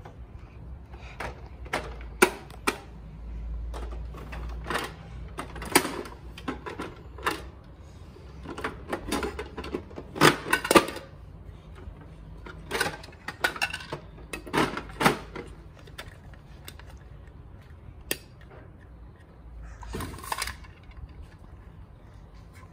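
Hard plastic parts of a Bruder toy garbage truck being handled, clicking and knocking irregularly, some single and some in quick clusters of clatter.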